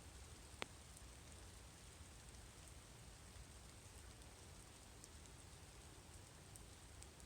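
Faint light rain during a thunderstorm: a soft, steady hiss over a low background rumble, with one sharp tick a little over half a second in and a few fainter ticks scattered through.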